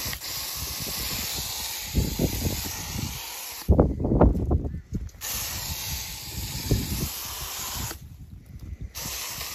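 Hortex hose-end sprayer spraying neem oil in water onto shrubs: a steady hiss of spray that stops briefly about four seconds in and again at eight seconds. A short run of low bumps and rumbling fills the first pause.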